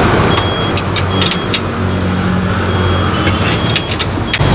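A bus engine idling with a steady low hum, under a repeated high electronic beep. Sharp metallic clicks come in two clusters, about a second in and again near the end.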